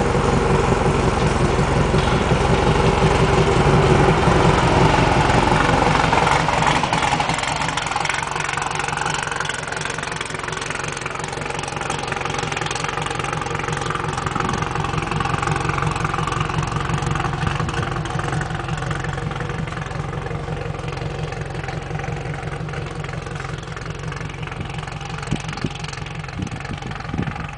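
Pickup truck engine pulling away while towing a disabled off-road race buggy. It is loud for the first several seconds, then fades to a lower, steadier sound as the truck moves off.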